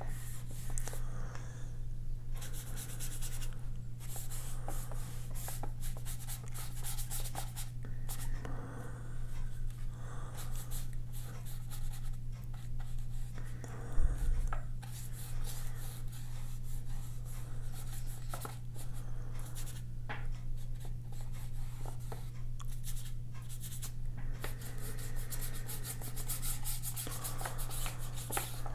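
Paintbrush loaded with acrylic gouache brushing and scrubbing across sketchbook paper in repeated short strokes, over a steady low hum. A brief knock about halfway through.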